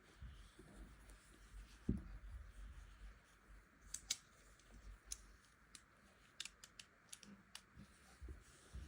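Quiet handling of a smartphone's retail box and packaging: soft low knocks, a louder knock about two seconds in, then a scattered run of sharp clicks and ticks.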